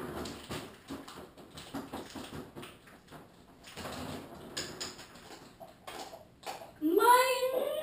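Faint small clicks and rustling, then near the end a child's voice rising in pitch in a loud squeal.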